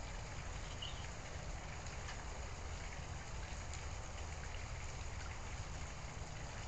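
Steady background noise: a low rumble with an even hiss over it and a few faint ticks.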